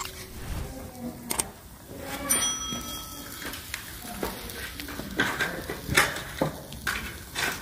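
Metal kebab skewers clinking against the steel mangal grill as they are laid over the coals: several sharp clinks, one of which rings on for about a second.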